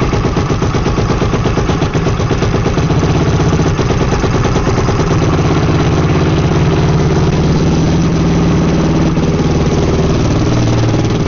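Freshly rebuilt Yamaha YFZ450R single-cylinder four-stroke engine idling steadily with the choke on, warming up on its first heat cycle after the rebuild.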